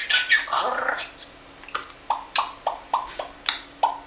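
African grey parrot saying its own name, "Tutachok", in a mimicked human voice, then making a quick series of sharp clicks, about three a second.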